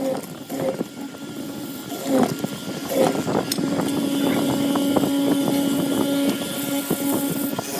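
Hollow-chisel mortising machine cutting a mortise in a wooden rail: a steady motor hum with scattered sharp knocks as the chisel works into the wood.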